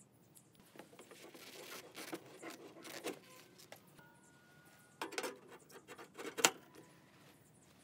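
A steel flue pipe being fitted into the stove top's chimney collar: metal scraping and clinking, with one sharp clank about six and a half seconds in.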